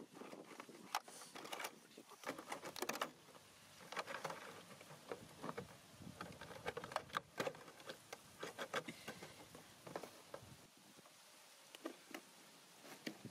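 Thin clear plastic bottle crinkling and clicking as hands press and fit its cut funnel end into the bottle body; many irregular crackles and ticks, thickest about two and seven seconds in.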